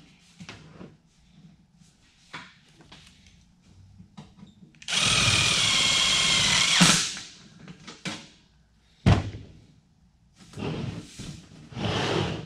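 Cordless drill driving a screw into the sheet-metal stove pipe, running steadily for about two seconds in the middle. Around it the metal duct rustles as it is handled, with one sharp knock about nine seconds in.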